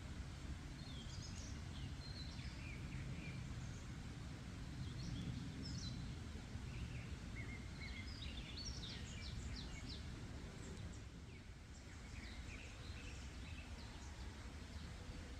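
Several small birds chirping and trilling on and off in a forest, over a steady low background rumble.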